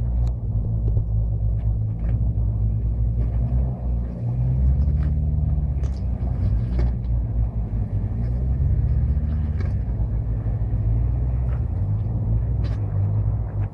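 Off-road 4x4 engine running steadily as it crawls over loose rock, with scattered sharp clicks and knocks of stones.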